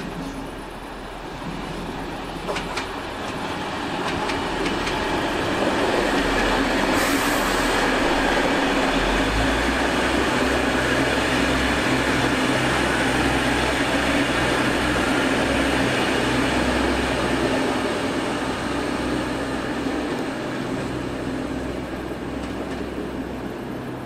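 DB class 612 diesel multiple units running past, with engine drone and wheels on rail. The sound builds over the first few seconds, holds steady and loud, then eases off near the end.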